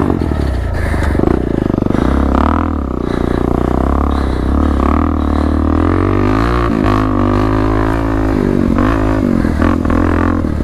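Suzuki DR-Z400 dirt bike's single-cylinder four-stroke engine running through an aftermarket Black Widow exhaust, its pitch rising and falling again and again as the throttle is opened and eased off while riding. It has a deep note that sounds like a quad.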